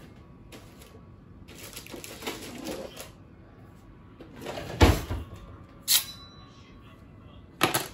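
Kitchen handling noises on a tabletop as a knife is brought to the cutting board: rustling, then a heavy thump about five seconds in and two sharp knocks after it.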